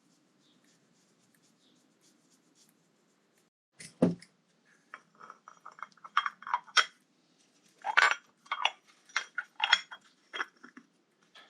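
Small metal parts and tools being handled on a workbench: a sharp knock about four seconds in, then a run of irregular clinks and clatters.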